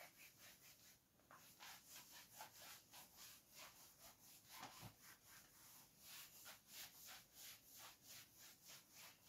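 Faint scratching of writing: a quick, steady run of short pen strokes, several a second.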